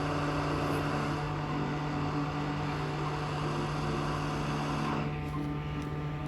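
Hot air rework gun blowing at reduced airflow while a tiny SMD resistor is soldered: a steady hiss over a motor hum, easing off about five seconds in.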